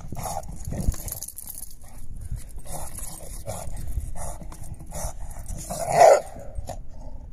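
English bulldog making short, gruff vocal noises while playing with a car tire, with one loud bark about six seconds in.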